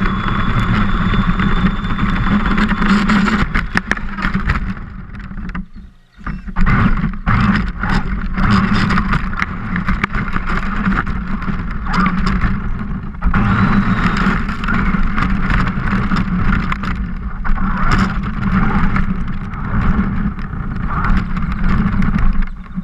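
A radio-controlled car driving hard, heard through a camera mounted on its body: a constant motor and drivetrain whine with rattles and knocks over rough ground, water splashing at first. The sound drops out briefly about six seconds in, then picks up again.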